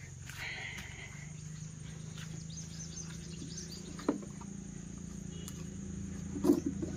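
Plastic jar being handled and its screw cap put on: a single click about four seconds in, then a short cluster of louder clicks and knocks near the end. Underneath is a steady low hum and faint insect chirping.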